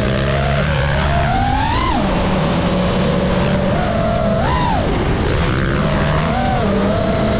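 Motocross dirt bike engine revving, its pitch climbing and dropping twice as the rider opens and closes the throttle.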